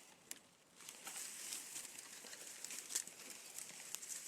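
Footsteps crunching through dry winter leaves and brush: a string of crackles and rustles, almost quiet for about the first second and then steady.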